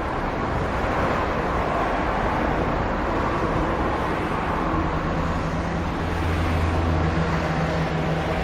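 City street traffic: a steady wash of passing vehicle noise, with a low engine hum growing louder about halfway through.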